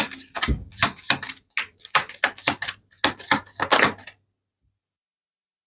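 Tarot cards being handled on a table: a fast, irregular run of sharp clicks and taps, about three or four a second, that stops about four seconds in.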